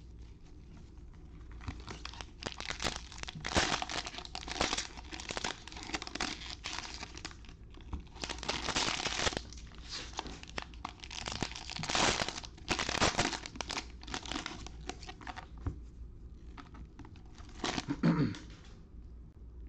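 Foil trading-card pack wrappers being torn open and crinkled by hand, in irregular bursts of crackling rustle a second or two apart, with the loudest near the middle and near the end.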